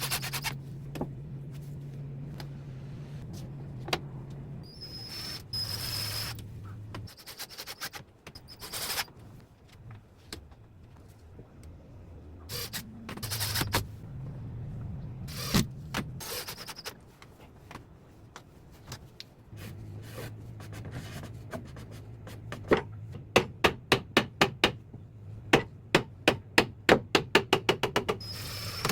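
Woodworking with hand tools on wooden boards: scattered knocks and scraping, then near the end a fast, even run of sharp hammer blows, about four a second.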